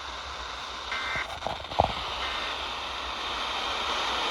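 Steady radio static hiss with two brief warbling data bursts about a second apart, the second fainter: the EAS end-of-message tones that close an emergency alert test. A few crackling clicks break in between them, one sharp and loud.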